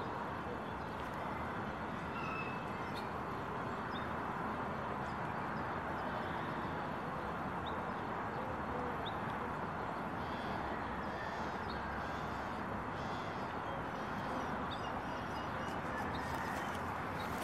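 Steady outdoor background noise with no distinct machine or rhythm, and a few faint, short bird chirps scattered through it.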